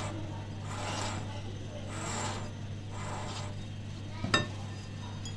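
Silicone spatula scraping and folding thick cake batter around a glass mixing bowl, in slow strokes about once a second over a low steady hum, with one sharp clink against the bowl about four seconds in.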